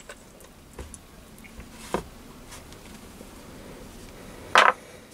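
Small metal parts of a lathe milling spindle being handled and fitted by hand: a few light clicks as the back cover goes onto the threaded spindle end, then one louder short clatter near the end as parts are picked up off the bench.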